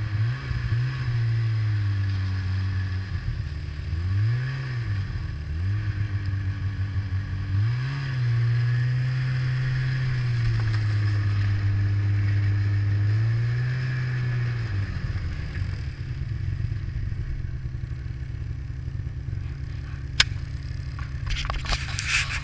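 Ski-Doo snowmobile engine heard from the rider's seat, its pitch rising and falling with the throttle several times, holding steady for a few seconds, then dropping to a lower, steady run. Near the end there is a single sharp click, then rustling against the microphone.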